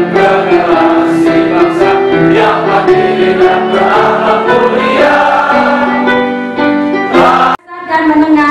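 Choir singing with instrumental accompaniment, holding long notes, which cuts off abruptly near the end. Just after the cut, a woman's voice starts through a microphone.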